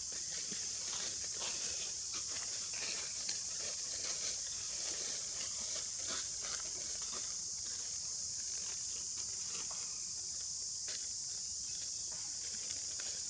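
A steady high-pitched drone that does not change, with scattered light clicks and rustles over it.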